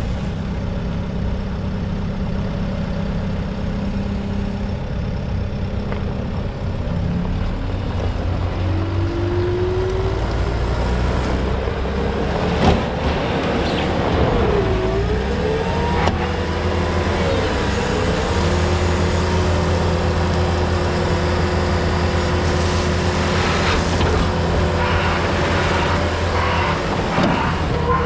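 Case SR210 skid steer's diesel engine running steadily, with a whine that rises and dips repeatedly from about a third of the way in as the machine works, and one sharp clank near the middle.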